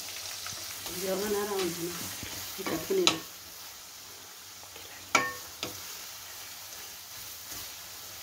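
Sliced onions sizzling steadily in hot oil in a kadai as they are stirred with a wooden spatula. There are sharp knocks on the pan about three seconds in and again about five seconds in.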